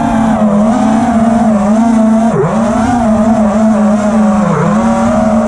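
Four brushless motors of a 5-inch FPV racing quadcopter (T-Motor F60 Pro IV 1750 kV spinning tri-blade props) heard from the onboard camera: a loud, steady buzzing whine that wavers with throttle and dips sharply in pitch twice, about two seconds in and again near the end. Wind rushes over the microphone underneath.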